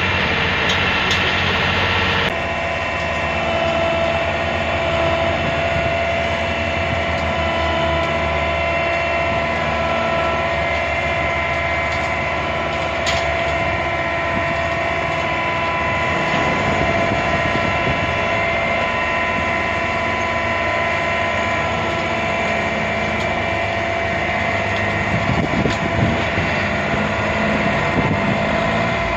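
Pezzolato S9000 hammer mill shredder running with the tractor and wheel loader engines: a steady machine drone with several steady whining tones. The sound shifts abruptly about two seconds in, and there is some rougher knocking near the end.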